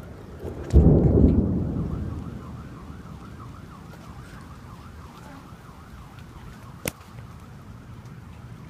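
A sudden loud thunderclap about a second in, rumbling away over the next two seconds, over a steady hiss of rain. A siren wavers quickly in the background, and a single sharp click comes near the end.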